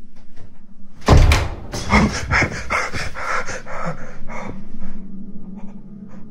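A sudden loud bang about a second in as a bedroom door swings open, followed by about three seconds of rapid, rough, irregular noises, then a few faint clicks near the end.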